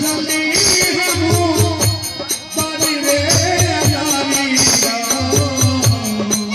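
Music: a man singing a wavering, ornamented melody over instrumental accompaniment and a steady drum beat.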